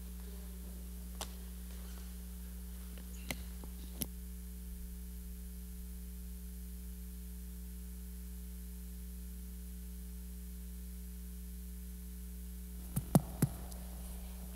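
Steady low electrical hum in the sound system's audio feed. A few faint clicks sound early, and a quick cluster of sharper knocks comes about a second before the end.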